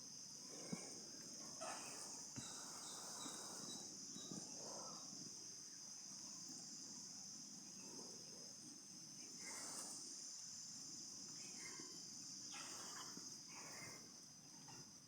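Steady, high insect chorus running throughout, with scattered short, soft animal calls and rustles over it.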